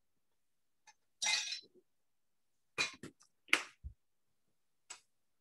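A utensil scraping and clinking against a pan while flour is stirred into sautéed mushrooms and onions: scattered short scrapes and clinks, the loudest about three and a half seconds in, followed by a dull knock.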